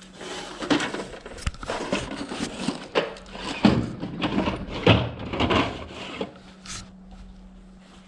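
Things being rummaged through and moved by hand: irregular knocks, clatters and rustling for about six seconds, then quieter.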